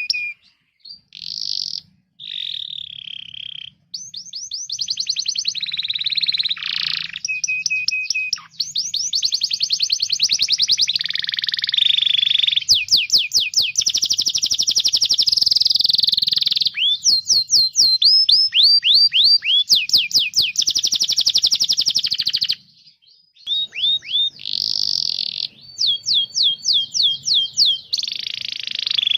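Domestic canary singing a long, loud song of rapid trills and phrases of repeated down-swept whistled notes, changing from one phrase to the next, with a brief pause about two-thirds of the way through.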